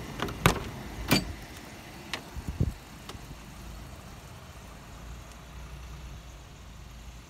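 Pontiac Firebird driver's door being unlatched and swung open: a few sharp clicks and knocks in the first three seconds, then a steady low rumble.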